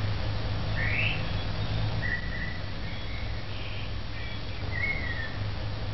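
Birds calling: short whistled calls, some held level and some sweeping upward, spaced a second or more apart over a steady low hum.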